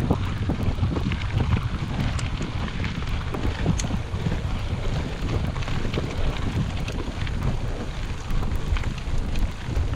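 Wind buffeting the microphone as a mountain bike rolls along a gravel road, with a steady low rumble from the tyres and many small clicks and rattles from stones and the bike.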